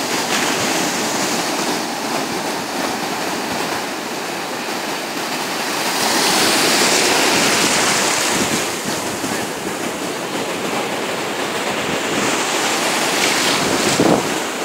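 Sea surf breaking and foamy water rushing up the shore in a continuous wash, swelling louder about six seconds in as a wave runs in close.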